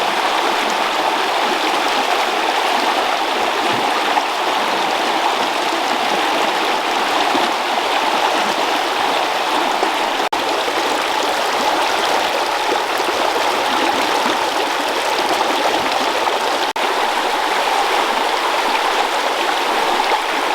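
Steady rush of running water, with two momentary dropouts in the sound.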